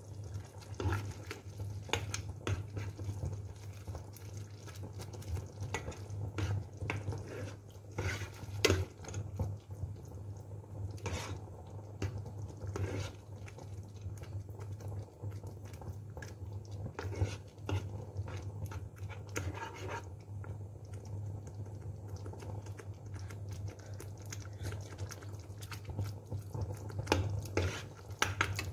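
A metal spoon stirring thick tomato meat sauce in a stainless steel pot, with scattered clinks and scrapes against the pot, over a steady low hum.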